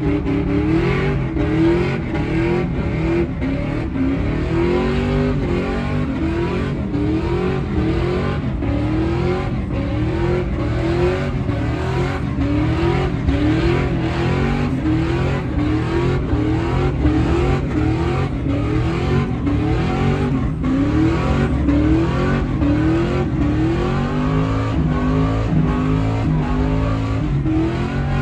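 Pickup truck doing a tyre-smoking burnout: its engine revs hard in repeated surges, the pitch climbing again and again roughly once a second, over the steady noise of the spinning rear tyres.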